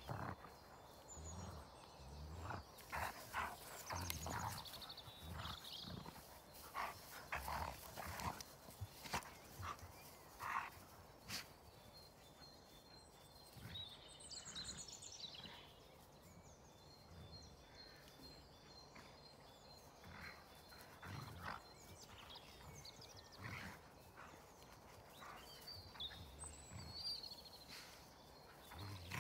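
Two dogs play-fighting on grass: short growls and grunts in quick succession, several a second in the first ten seconds or so, then fewer and fainter.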